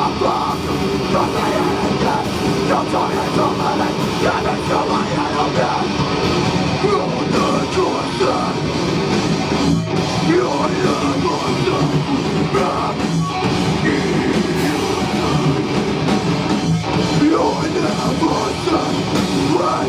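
A hardcore band playing live and loud: distorted electric guitar with drums, with shouted vocals mixed in.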